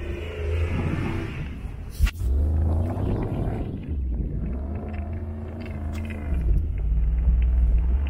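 Toyota 3UZ-FE V8 engine in a UAZ Patriot, revving up and falling back again and again as the SUV ploughs through deep snow, over a heavy low rumble. A single sharp click about two seconds in.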